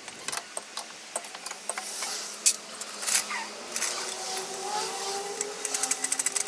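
Metal tools clinking and clanking against each other and on the car, then near the end a fast rattling hammering starts, about ten strokes a second.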